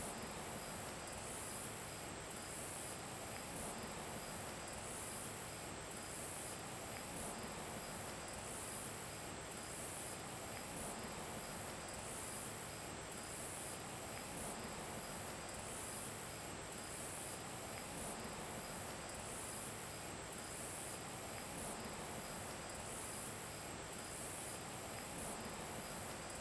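Insects chirping steadily, a faint high pulsing in an even rhythm over a soft background hiss.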